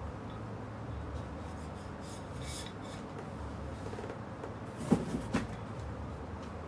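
Plastic packaging being handled and rustled, with two sharp knocks close together about five seconds in as items are set down.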